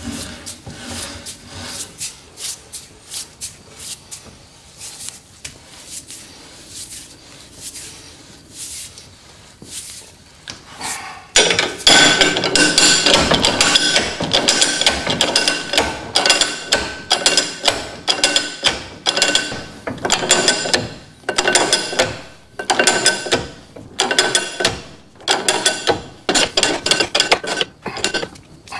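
Hand-pumped shop press forcing a socket through a Corvair strut rod to push out the old rubber bushing, with repeated creaking strokes. It gets much louder about 11 seconds in, each stroke then coming about once a second with a squeak.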